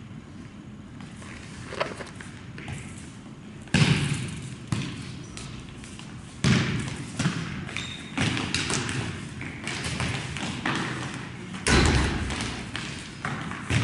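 A soccer ball being kicked and bouncing on a hard gym floor: a string of thumps, the three loudest about four, six and a half and twelve seconds in, among players' running footsteps, echoing in the large gymnasium.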